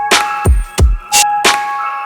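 Background music with a steady beat of sharp drum hits and sustained bell-like synth notes.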